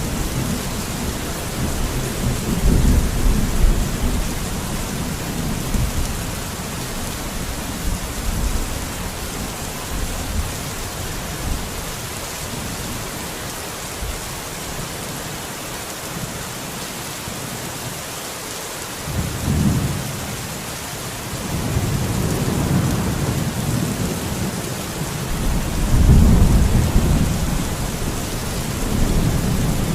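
Steady rain falling, an even hiss, under low rumbles that swell and fade several times, loudest near the start and again in the last third.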